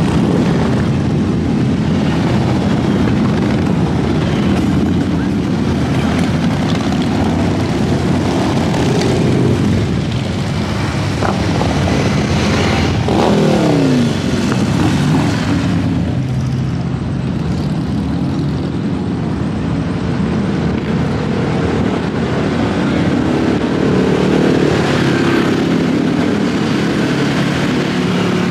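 Big motorcycle engines running and being revved, with a pitch falling away about halfway through.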